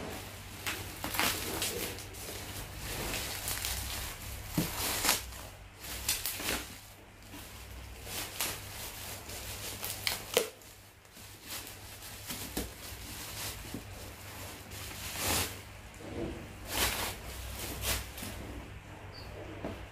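Black plastic shipping bag crinkling and rustling in irregular bursts as it is handled and pulled open, with a few sharper crackles.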